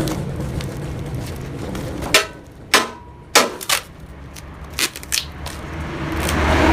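About half a dozen sharp knocks at uneven intervals, each with a brief ring, over a low steady hum that dies away early and swells back near the end.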